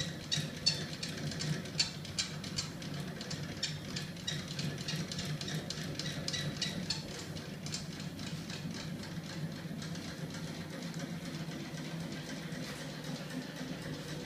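Homemade magnet crank-engine prototype running, driven by a small electric motor and carrying a heavy stacked steel flywheel: a steady low hum with rapid, irregular ticking that thins out about halfway through.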